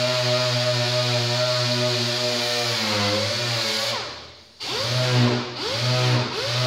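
Handheld air-powered body-shop tool running at a steady pitch, winding down and stopping about four seconds in. It then starts again sharply and is blipped three times, its pitch rising and falling each time, before running steadily again.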